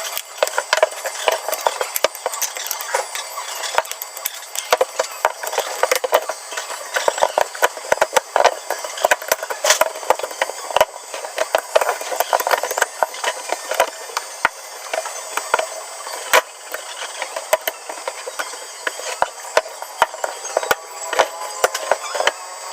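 Many small clicks, taps and knocks, one after another, as the parts of a two-tier shelf are handled and fitted together.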